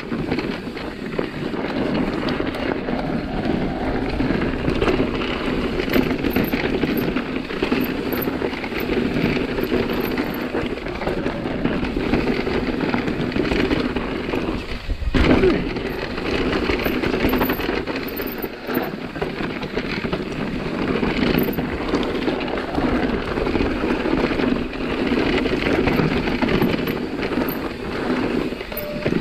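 Nukeproof Megawatt electric mountain bike riding down a dirt forest trail: steady tyre noise on dirt and loose gravel, with a brief drop about fifteen seconds in.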